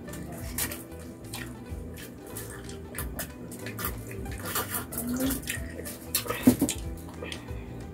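Close-up eating and drinking sounds: gulps of a soft drink from a glass, with many wet mouth clicks and smacks from chewing.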